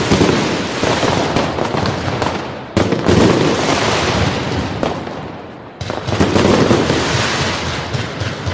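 Fireworks display: a sudden loud burst about three seconds in and another near six seconds, each followed by dense crackling that slowly fades.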